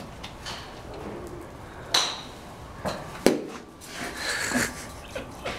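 Golf iron striking a ball off a driving-range turf mat: a sharp, ringing click about two seconds in, followed by a duller knock about a second later.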